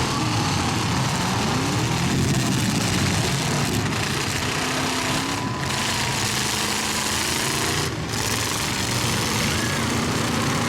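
Several demolition-derby truck engines running and revving at once, their pitches rising and falling over a steady rumble.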